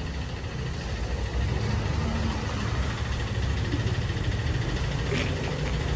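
Steady low rumble of a vehicle engine idling in the street.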